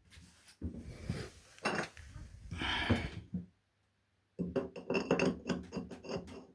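Small hard parts being handled and clinking against each other. It comes in two bouts: a clattering, rustling stretch, then after a short pause a rapid run of clicks and clinks.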